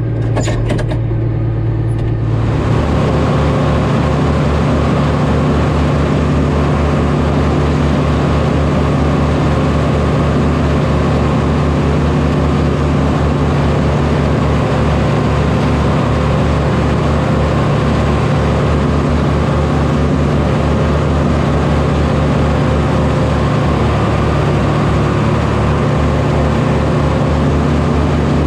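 A farm tractor engine running steadily under way. A few clicks come in the first two seconds, and about two seconds in the sound turns louder and fuller while the steady low hum carries on.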